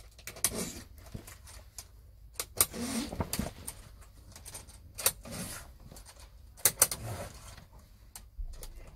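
Irregular clicks and snaps of plastic curtain hooks being pushed into the runners of a curtain rail, with the rustle of thick velour curtain fabric being handled.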